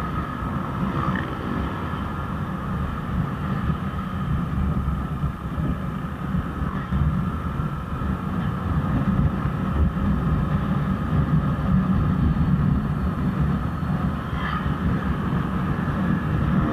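Motorcycle riding at a steady pace on an open road: engine running with a continuous low road rumble and a faint steady whine.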